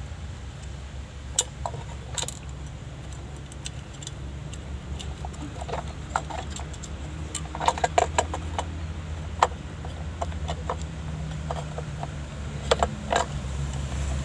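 Small metallic clicks, taps and jingling of parts and wiring being handled as the horn switch, with a new ground wire added, is refitted. The taps cluster about halfway through and again near the end, over a steady low hum.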